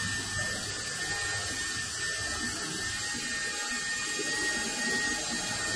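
Dremel rotary tool running steadily with a high whine, held with light pressure against brass plug prongs to polish off patina.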